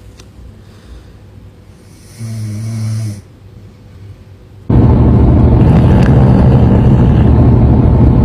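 A sleeping man snores once, one long snore about a second long, a little over two seconds in. About two-thirds of the way through, a loud steady rumble cuts in suddenly and keeps going.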